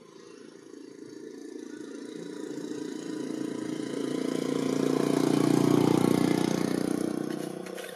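A motor vehicle driving past: its engine noise swells steadily, peaks about six seconds in, then fades quickly.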